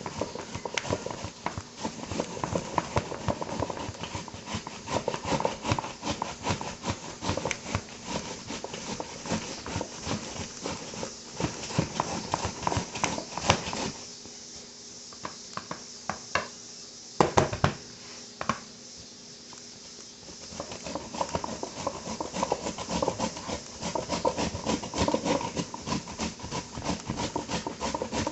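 Knife chopping cabbage on a cutting board in rapid, uneven knocks. The chopping pauses about halfway through for several seconds, with only a few single louder knocks, then resumes just as fast.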